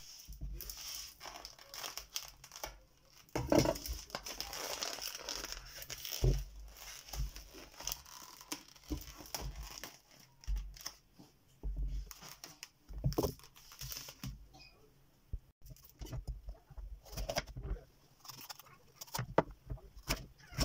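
Plastic cling film crinkling and tearing as it is pulled off a tray of bell peppers. In the second half, a chef's knife cuts a green bell pepper on a bamboo cutting board, a run of separate knocks.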